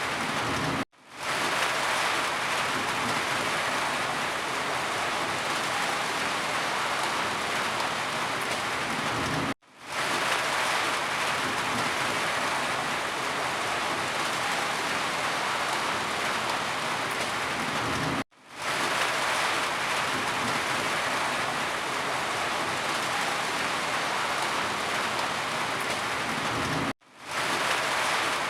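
Steady rain falling, a dense even patter. About every nine seconds the sound cuts out for an instant and swells back in.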